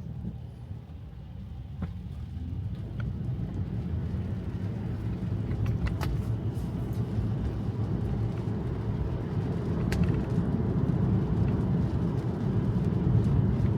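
Road and tyre noise inside a Tesla electric car's cabin, growing steadily louder as the car picks up speed, with a few light clicks.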